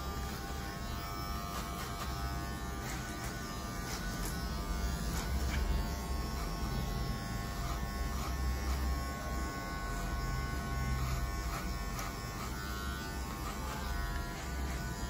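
Electric hair clippers running with a steady buzzing hum as they cut short hair, worked over a comb, with scattered light ticks.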